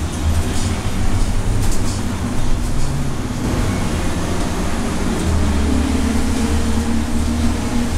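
Cabin sound of a 2012 Nova LFS diesel city bus under way on a wet road: the engine and drivetrain run with a steady low drone over a hiss of tyres on wet pavement, with a few light rattles about one and a half to two seconds in.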